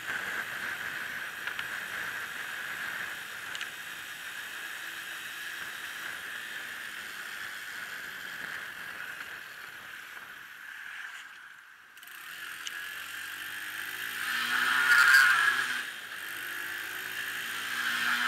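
Bicycle running with a steady high-pitched noise from the bike, the odd noise that remains after it was fixed. About three-quarters of the way in, a louder whoosh swells and fades.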